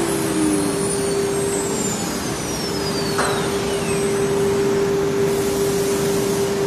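CNC router's air-cooled spindle running with a steady tone while it routes a profile into an MDF cabinet door panel, over a steady rushing noise of cutting and dust extraction.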